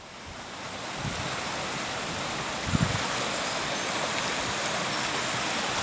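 Dyserth waterfall's water rushing in a steady, even hiss that swells in over the first second. Two brief low buffets of wind on the microphone come about a second in and just before three seconds.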